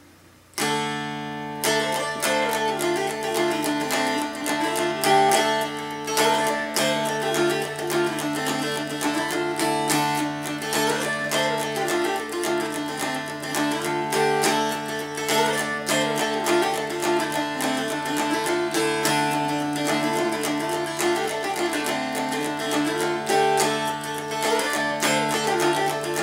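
Mountain dulcimer in DAC tuning, strummed with a pick and playing a fiddle tune. The melody moves over steady drone strings. It starts about half a second in.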